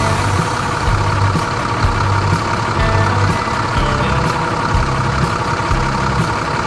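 A tractor engine sound effect running steadily, with a low, uneven pulsing rumble.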